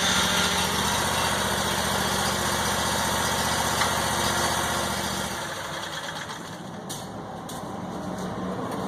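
Small gasoline engine running steadily, then shutting off about five seconds in, followed by a few light clicks.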